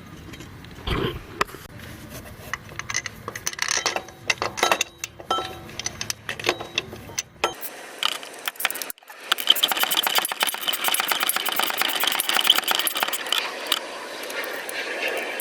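Hand tools clinking and knocking on metal parts. About nine seconds in, a ratchet wrench starts clicking rapidly and evenly as the tensioner and idler pulley bolts are run back in.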